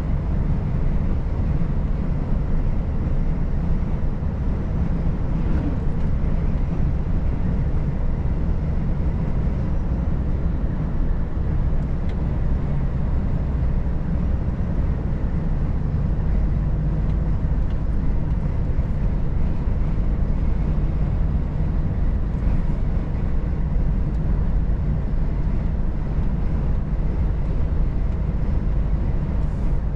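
Volvo FH 460 truck's 13-litre six-cylinder diesel engine running steadily on the road, a constant low drone mixed with road noise.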